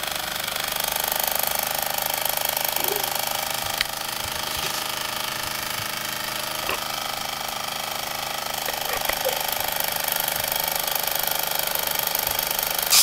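Mamod TE1A toy steam traction engine running steadily under steam, a continuous hiss and fast mechanical chatter, with an odd sharp tick.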